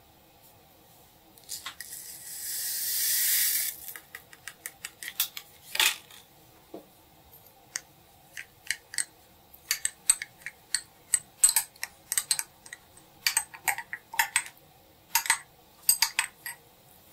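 Light clicks and clinks of kitchen utensils against dishes, scattered irregularly, with a brief hiss about one and a half seconds in.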